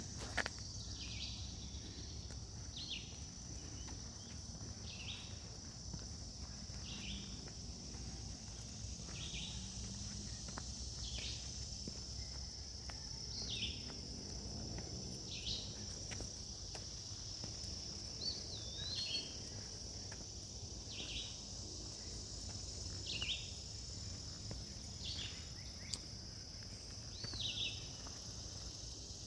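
A bird repeating a short down-slurred call about every two seconds, over a steady high-pitched drone of insects.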